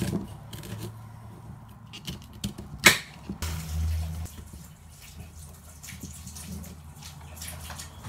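Knife chopping vegetables on a board: irregular taps and knocks, with one sharp, louder knock about three seconds in. A steady low hum comes in just after it.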